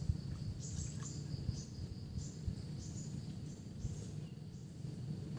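Outdoor ambience over calm water: short high-pitched chirps repeating irregularly, about two a second, over a steady low rumble.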